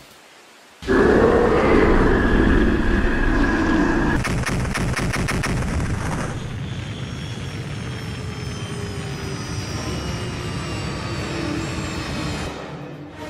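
Sci-fi sound effect for a large alien machine descending: a sudden loud blast of noise about a second in, a rapid rattling pulse a few seconds later, then a fading hum with slowly falling tones.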